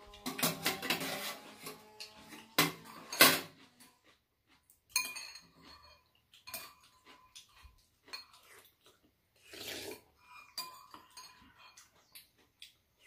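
Metal spoons and chopsticks clinking and scraping against ceramic soup bowls and a metal serving tray during eating. The clinks come scattered and irregular, loudest and busiest in the first few seconds, then lighter and sparser.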